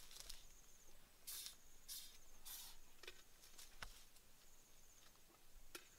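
Faint, scattered rustling of leaves and twigs as tree branches are handled, in short separate bursts over near silence.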